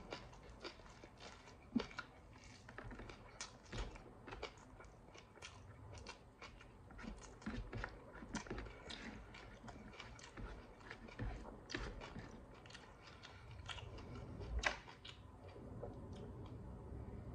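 Close-up chewing and lip-smacking of a person eating rice by hand: an irregular run of small wet clicks, one louder smack a little before the end.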